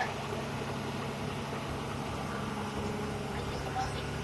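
Heavy diesel engine of construction machinery running steadily at low revs.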